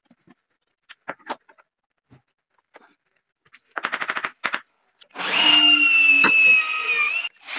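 A few light knocks, then a quick run of hammer taps on the wooden board about four seconds in. A power drill then runs with a steady whine as it bores into the laminated wood top, stops briefly near the end and starts again.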